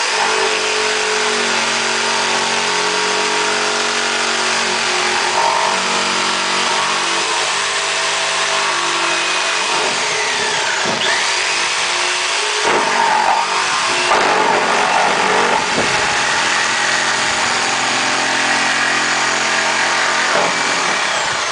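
Ryobi jigsaw with a wood blade running at fast speed, cutting through pallet wood. The motor runs steadily and loud, its pitch dipping and recovering a few times about halfway through the cut.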